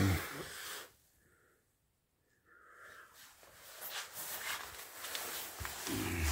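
Faint rustling and small clicks of hand-held camera handling in a small room, after a second and a half of dead silence; a man's voice begins near the end.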